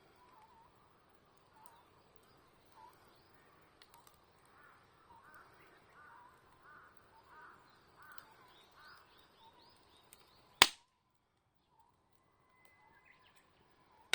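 Wild birds singing outdoors, a run of short repeated chirping phrases over a soft background hiss. About ten seconds in, a single loud sharp crack, after which the background falls almost silent.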